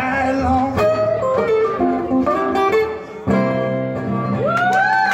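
Acoustic guitar played solo in a blues style: single-note runs and strummed chords, with a brief break about three seconds in before fuller strumming resumes.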